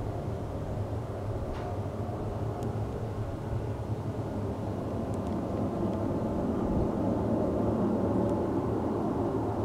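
Low, steady rumbling drone with held droning tones, swelling a little in the second half: the kind of unexplained groaning noise reported as a 'sound from the sky'.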